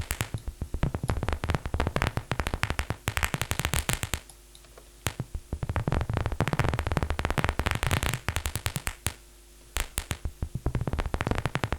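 Synthesized imitation of paper crumpling from the Vital software synth: dense runs of sharp crackling clicks through a very short reverb, played three times with brief pauses between the passes.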